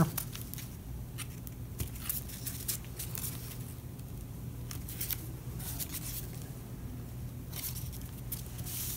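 Construction-paper strips rustling and scraping as they are lifted and pressed down by hand on a table, in short scattered rustles over a faint steady low hum.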